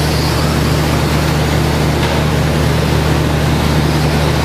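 Radio-controlled short course trucks racing on a dirt track, their motors and tyres a steady noise over a constant low hum in the hall.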